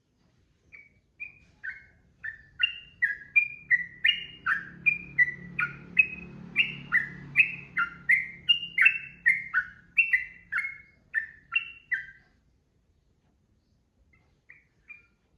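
Yellow-vented bulbul (trucukan) singing a long unbroken run of short, quick whistled notes, about two or three a second, for around eleven seconds before stopping. A couple of faint notes follow near the end.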